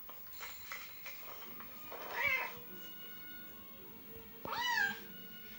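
Cat meows played through a phone's speaker: two meows, one about two seconds in and a louder, rising-then-falling one near the end.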